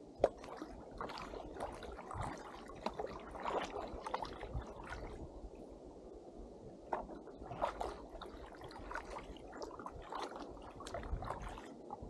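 Kayak paddle strokes on calm water: blades dipping and pulling, with splashing, gurgling and dripping in two bouts of several strokes and a short lull between. A sharp knock comes about a quarter second in.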